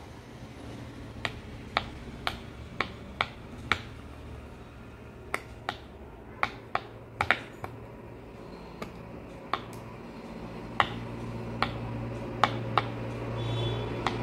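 Bubbles of a silicone Pop It fidget toy being pressed one by one, each giving a sharp little pop, in runs of a few pops about half a second apart with short pauses between.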